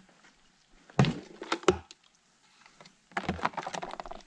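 Knocks and thunks from a plastic bucket of fish being handled on rocks: one sharp thunk about a second in, two more close together just after, then a rattling clatter near the end.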